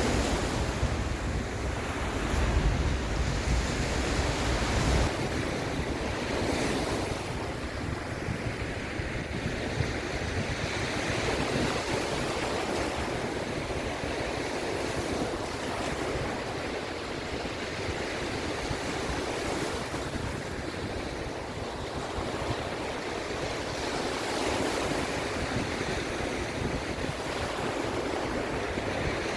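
Sea waves washing in, a steady rush of surf that swells and eases every few seconds. Wind buffets the microphone with a low rumble for the first few seconds.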